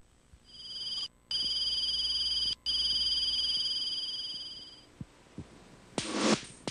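Television network logo ident: a steady high electronic tone with a slight wobble, held about four seconds and cutting out twice for a moment. Near the end the opening theme music starts with a sharp attack and quick plucked notes.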